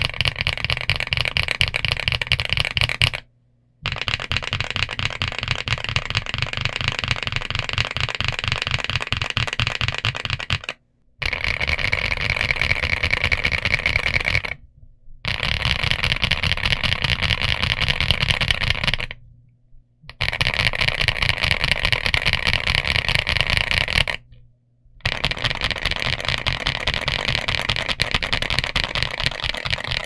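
Fast, continuous typing on a Geekzb Story65 R3 mechanical keyboard with Zuoce Litchi Milk tactile switches and GJ Jockey double-shot PBT keycaps: a dense stream of key clacks. The clacks stop briefly five times.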